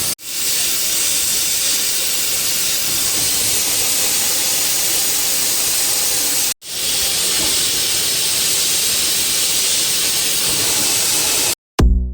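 Steady hissing rush of the brazing machine's gas torch flames. It cuts off abruptly twice and then stops, giving way to electronic music with a beat near the end.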